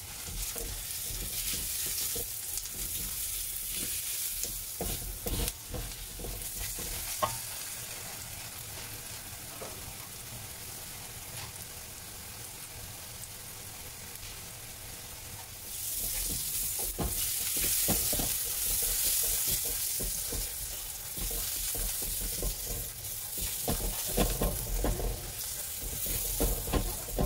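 Sliced onions sizzling in hot sunflower oil in a steel kadai while they sauté, with a spatula stirring and scraping them against the pan now and then. The sizzle gets louder about halfway through.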